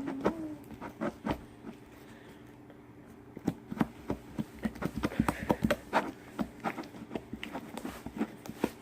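Cloud slime being kneaded and pulled by hand, giving quick, irregular sticky pops and clicks that come thick and fast from about three seconds in.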